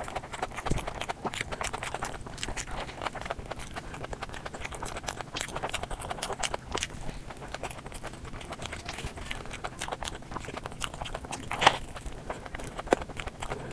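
Close-miked eating of a burger: steady chewing with many small wet mouth clicks and smacks, and one louder smack near the end.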